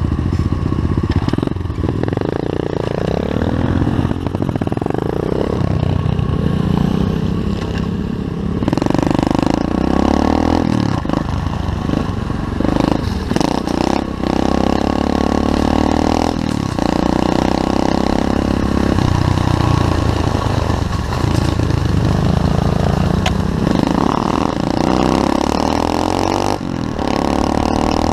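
SSR 125cc pit bike's single-cylinder four-stroke engine being ridden, revving up and down repeatedly. The engine note breaks off briefly several times, at gear changes or when the throttle is closed.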